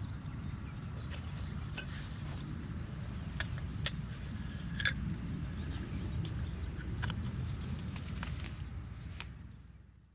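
Wood campfire crackling: a low steady rumble with scattered sharp pops, fading out near the end.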